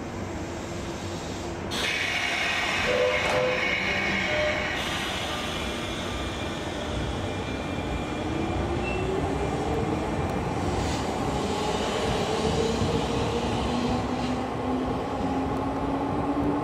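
JR West 201 series electric train pulling away from a station platform. A burst of hiss starts about two seconds in; from about seven seconds the traction motors' whine glides up in pitch as the train gathers speed.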